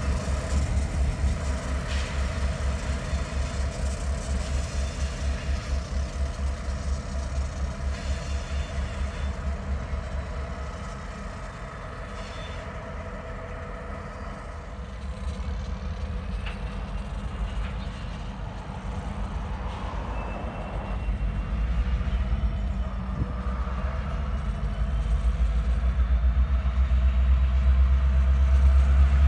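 Diesel freight locomotive running with a low, pulsing engine rumble as the train moves slowly away; the rumble drops off about a third of the way through and builds up louder again near the end.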